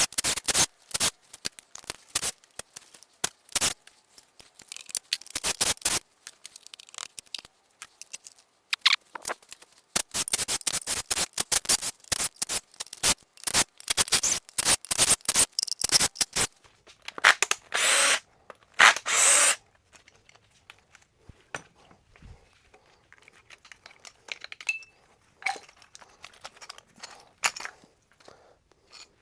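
Hand tools working on an engine being disassembled: runs of rapid, sharp metallic clicking, with two longer rasping bursts about two-thirds through, thinning to scattered clicks near the end.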